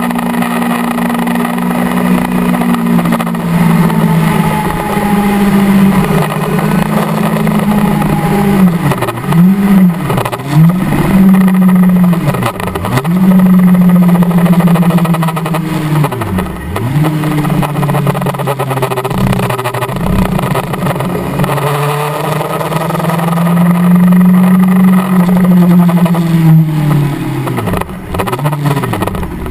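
Kawasaki ZX-10R's inline-four engine running at high revs under way, its note held mostly steady but dipping briefly in pitch and climbing back several times, as the motorcycle slows from highway speed. Rushing wind noise runs underneath.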